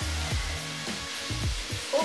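Background music with a steady bass beat over a steady hiss of food frying in a pan.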